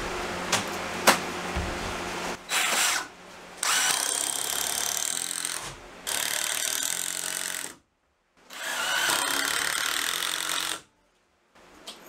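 Red cordless impact driver running in four separate runs, the longer ones about two seconds each, driving screws into wooden framing studs. Two sharp clicks come before the first run.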